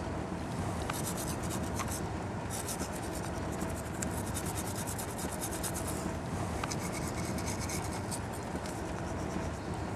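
Toothbrush scrubbing teeth in rapid back-and-forth strokes, with a short pause a little past halfway.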